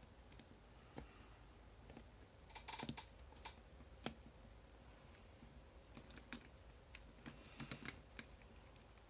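Faint, scattered metallic clicks and light scrapes of a disc-detainer lock pick being inserted and seated in the keyway of a bicycle U-lock. There is a short cluster of clicks about three seconds in and another near the end.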